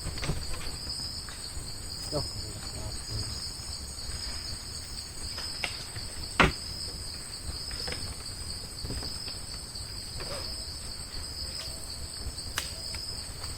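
Steady high-pitched chorus of night insects trilling without a break, with a sharp click about six and a half seconds in.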